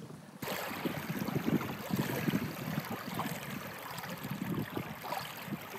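Small waves lapping on a pebble lakeshore, an irregular wash of water over stones that begins about half a second in.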